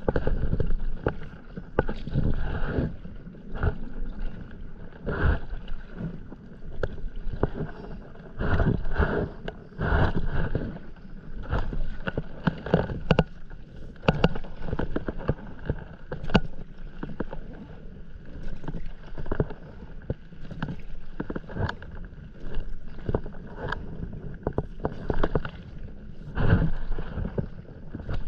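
Stand-up paddleboard paddle strokes through calm sea water: a splash and pull about every second or so, in a steady rhythm.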